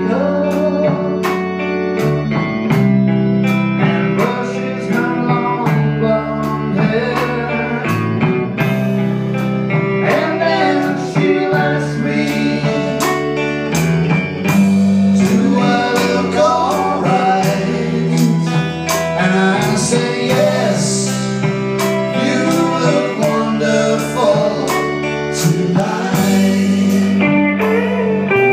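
Live band playing a slow blues-rock ballad: electric guitar lead with bent notes over bass, drums and organ, with a man singing.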